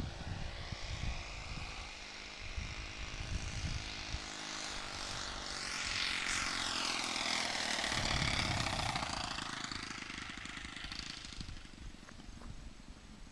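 A freshly rebuilt Saito FA-72 four-stroke glow engine on a radio-controlled Hangar 9 Corsair, still running a little rich while being broken in, is flying. Its pitch sweeps up and then down as it passes close by about six seconds in. The sound fades in the last few seconds as the plane comes down onto the runway.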